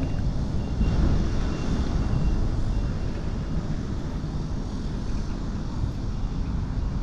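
Steady low outdoor rumble of wind on the microphone mixed with road traffic crossing the bridge, with no single event standing out.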